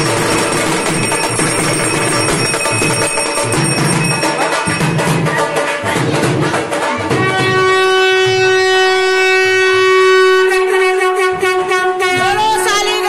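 Procession band music with drums and a wind instrument. About seven seconds in it gives way to one long, steady held note from a wind instrument, and voices start shouting near the end.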